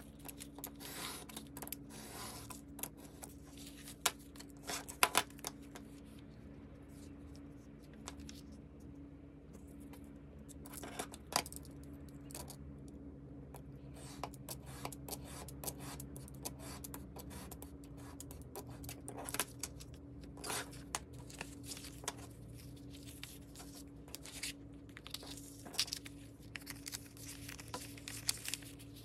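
Craft knife drawn along a steel ruler, cutting through patterned paper on a cutting mat, with scattered clicks and scrapes as the ruler, knife and paper sheets are handled and stacked, over a faint steady low hum. The footage runs at double speed, so the handling sounds come quick and close together.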